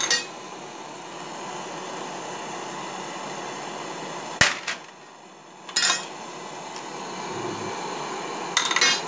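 Brass 7.7 Japanese rifle cases clinking as a homemade annealer's wheel drops them out of the torch flame into an aluminium tray. There are four sharp metallic clinks with a ringing tail, one to three seconds apart, over the steady hiss of the propane torch.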